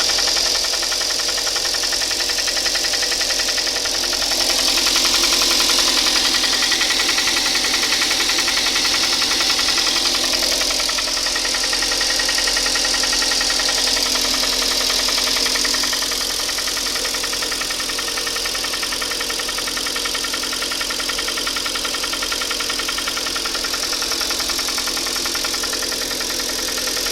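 Hyundai ix35 engine running with a steady, rapid knock from inside the engine. It is the sign of scored cylinders 2, 3 and 4.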